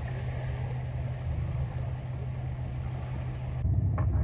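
A boat engine running with a steady low hum. About three and a half seconds in, the sound cuts to a louder low rumble with a sharp click.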